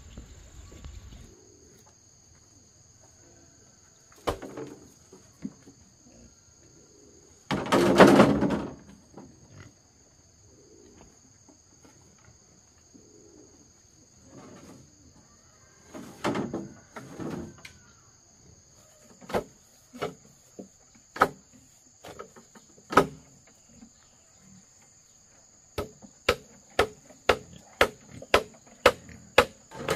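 Insects chirring steadily in two constant high tones. Over them come a loud noise lasting about a second around a quarter of the way in, another near the middle, and a run of sharp knocks in the last third that come about two a second near the end.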